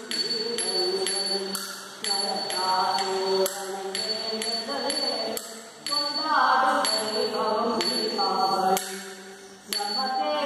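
A song with sung, chant-like vocal lines over sharp, regular percussion strikes, pausing briefly between phrases about five seconds in and again near the end.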